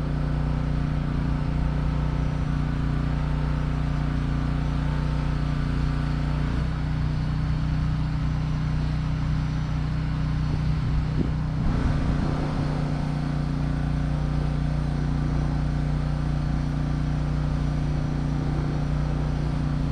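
A steady mechanical hum from a running motor or engine, holding one pitch throughout. Its higher tones drop away for a few seconds about halfway through, then come back.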